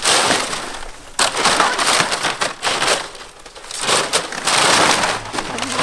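Dry palm fronds crunching and crackling as hands pull them apart and dig through the pile. The sound comes in loud bursts, with short lulls about one second in and again around three seconds in.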